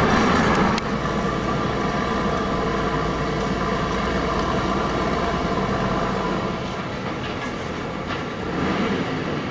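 Heavy truck running on the road: a steady diesel rumble with road and trailer noise, dropping a little in loudness about a second in.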